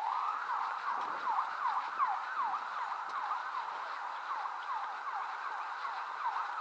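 Emergency vehicle siren in fast yelp mode, its pitch sweeping quickly up and down several times a second.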